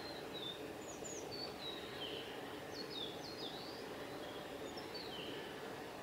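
Willow tit singing: short, high whistled notes that slide downward, in scattered groups, over a steady low background noise.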